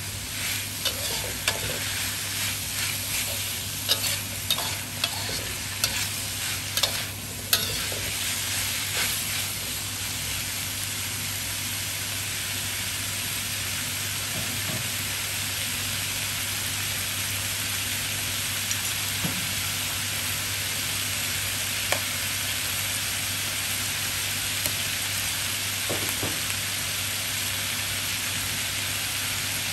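Sliced pork belly and vegetables stir-frying in a wok: a spatula scrapes and clacks against the pan for the first several seconds, then the food sizzles steadily.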